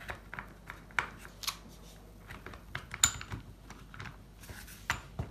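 Plastic side cover of an electric pole-saw head being pressed and seated by hand over the chain and bar: scattered clicks and knocks with rubbing in between, the sharpest click about three seconds in.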